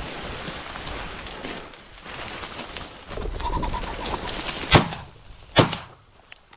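A flushing pheasant calls in a short run of notes, then two shotgun shots come a little under a second apart and bring the bird down.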